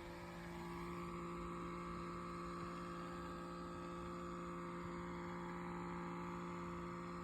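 Steady electrical machine hum made of several constant tones, running unchanged.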